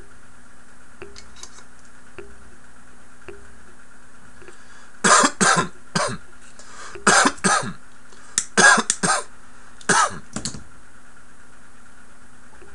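A man coughing hard after inhaling bong smoke. The coughs come in several bouts of two or three, starting about five seconds in.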